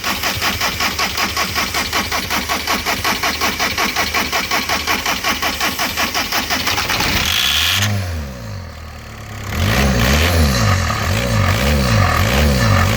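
A 2005 Volkswagen Jetta's diesel engine being cranked by its starter in a steady rapid rhythm for about seven seconds, then catching, faltering briefly, and running unevenly with its pitch rising and falling over and over. The owners take the hard starting for a failing in-tank fuel pump.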